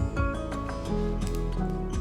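Background music: an instrumental passage of a pop song with a steady beat, between sung lines.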